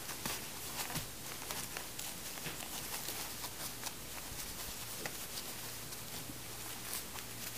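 Soft, irregular rustling and crinkling of disposable diapers as hands fold and tuck them around a rubber-banded bundle, over a faint steady low hum.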